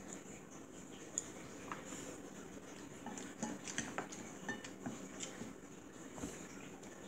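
Chopsticks clicking and tapping against ceramic plates during a meal. One sharp click comes about a second in, then a run of light clicks over the next few seconds.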